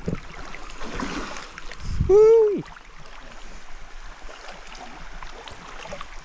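Shallow river water rushing steadily around wading legs. About two seconds in, a brief voice call that rises and then falls in pitch stands out above the water.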